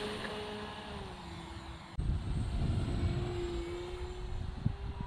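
RC model airplane's motor and propeller whining steadily, its pitch shifting a little with throttle as it flies. About two seconds in, a low rumble of wind on the microphone joins it.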